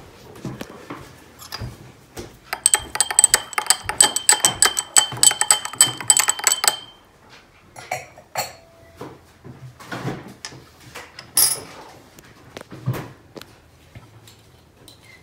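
Spoon stirring caustic soda solution in a small glass mason jar, clinking rapidly against the glass for about four seconds with a ringing glassy tone. It is followed by a few scattered knocks and taps as the jar is handled.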